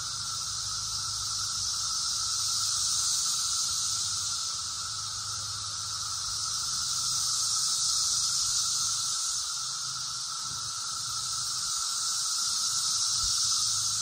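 Brood X periodical cicadas in full chorus: a dense, high-pitched buzzing drone with a lower steady tone beneath it, slowly swelling and easing every few seconds.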